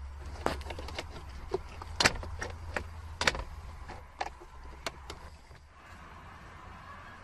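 Sharp plastic clicks and knocks from a car glove box lid and its latch handle being worked by hand, a dozen or so irregular snaps, the loudest about two and three seconds in, over a low steady hum.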